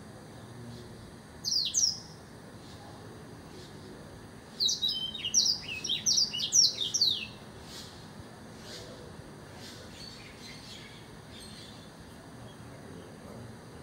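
A caged blackthroat (black-throated canary) singing. A short high phrase comes about a second and a half in, then a rapid run of high, falling notes lasting nearly three seconds, with faint softer notes after.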